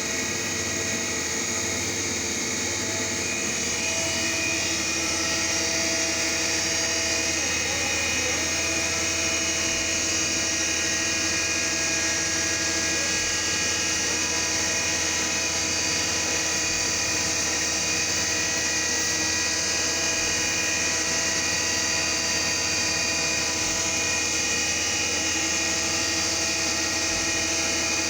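CNC milling machine running steadily, its spindle and cutter milling a groove into a shaft turned on the rotary fourth axis. There is a continuous machine whine with several held tones, and the pitch shifts slightly a couple of times as the feed changes.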